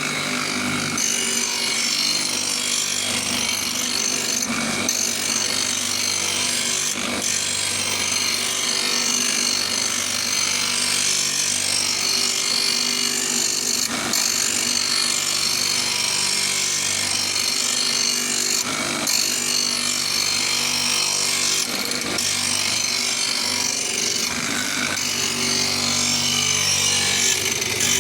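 Electric motor of a homemade knife-sharpening machine running steadily while it grinds the steel edge of a wood-chipper knife, with a dense high hiss over the motor hum and a few brief knocks.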